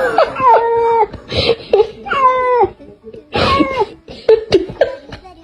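An animal crying out repeatedly: four or five short, wavering pitched calls about a second apart.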